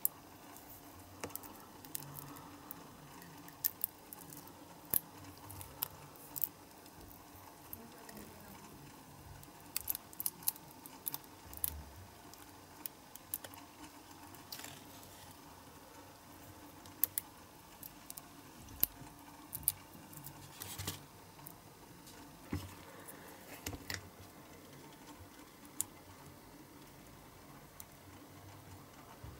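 Close handling noise of a cast resin ladder being worked out of a flexible silicone mould: irregular small clicks and ticks with now and then a short soft rubbing or peeling sound.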